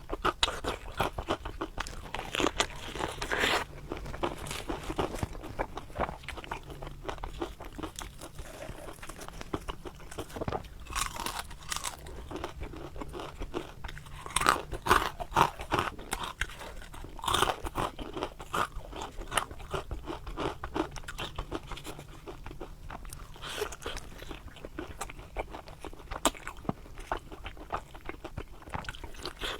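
Close crunching and chewing of deep-fried eggplant boxes (zha qie he), the crisp fried batter crackling with each bite. There are dense small crackles throughout and louder bites every few seconds.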